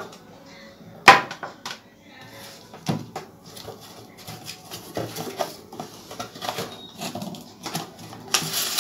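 Handling noise from the plastic parts of a steam inhaler being taken out and fitted together: a sharp knock about a second in, another near three seconds, then a run of small clicks and taps, and a louder scratchy rustle near the end.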